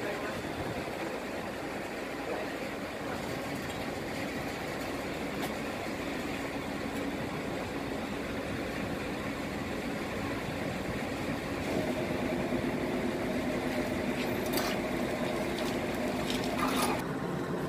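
An engine running steadily, with a steadier, more tonal drone setting in about twelve seconds in.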